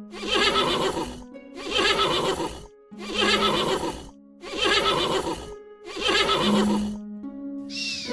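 A loud animal call repeated five times, each about a second long and about a second and a half apart, over background music.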